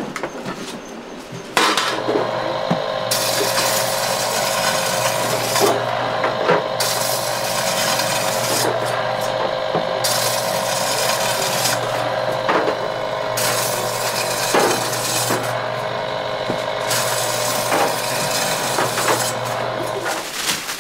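Electric bread slicer running: its motor hum starts about a second and a half in and stops just before the end, with repeated stretches of rasping as the blade cuts slices off a loaf of white bread, and scattered clicks.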